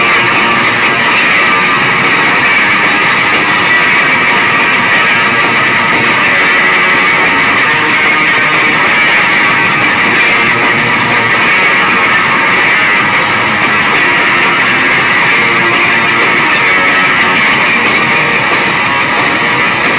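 Loud live rock from an electric bass guitar and a drum kit, a continuous wall of sound with no breaks.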